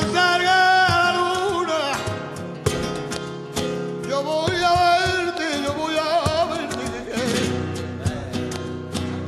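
Flamenco bulerías: a male cantaor sings two long, wavering, melismatic phrases, one at the start and one from about four seconds in, over flamenco guitar with sharp percussive strikes.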